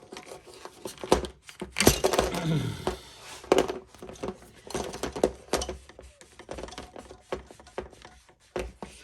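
Scattered clicks, knocks and scrapes of hands and tools working stubborn fuel injectors out of an LS V8's fuel rail and intake. The loudest stretch is a scrape with a short falling squeak about two seconds in.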